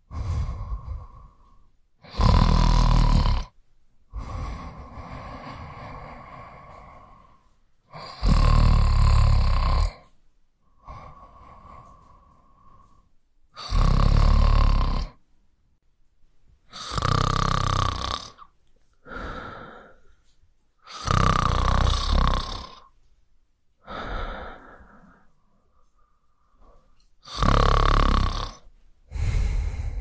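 A person snoring: a loud snore every few seconds, with softer snores and breaths between them.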